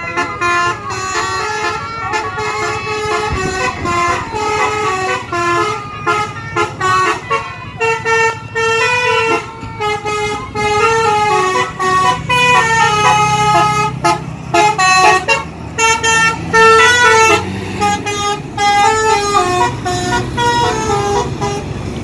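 A bus's multi-tone 'telolet' basuri musical horn playing quick tunes of stepping notes, with brief breaks between phrases. The bus engine hums underneath about halfway through.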